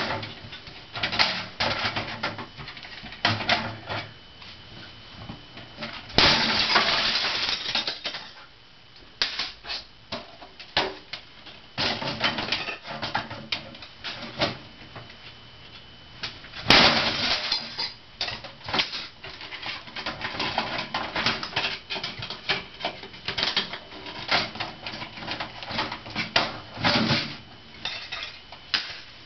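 Hammer blows smashing brittle plastic discs and cases, with sharp cracks and pieces clattering, over and over. Two longer, louder stretches of crunching come about six and seventeen seconds in.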